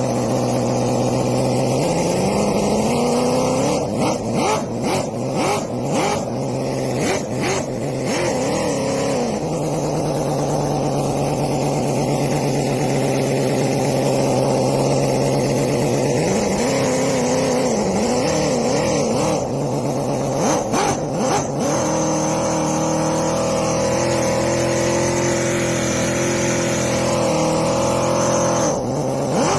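Miniature gasoline V8 model engine running after a push-button start. Its pitch rises about two seconds in, it is revved up and down in throttle blips a few times, and it settles at a higher, steady speed over the last several seconds.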